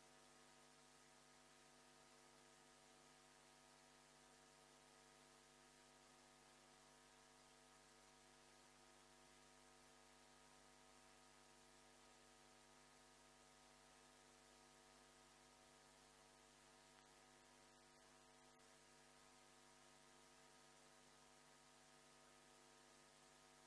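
Near silence: a faint, steady electrical hum made of several constant tones under a light hiss.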